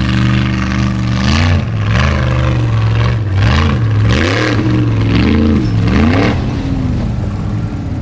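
Formula offroad buggy's engine at high revs climbing a steep dirt hill, the revs surging up and down about five times in quick succession as the throttle is worked, over a hiss of spinning tyres and thrown dirt.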